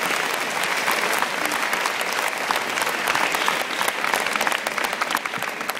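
Audience applauding at the end of a school marimba ensemble piece.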